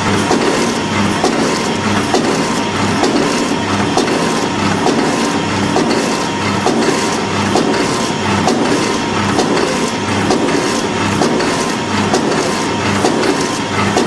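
AMS DXDK-80 automatic granule form-fill-seal packaging machine running, with steady clattering and ticking over a regular low pulse about one and a half times a second as it forms, fills and seals sachets.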